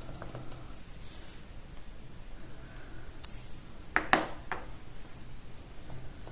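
Light clicks and taps of hand-stamping, a small rubber stamp being inked on an ink pad and pressed onto cardstock. There is a cluster of three sharp knocks about four seconds in.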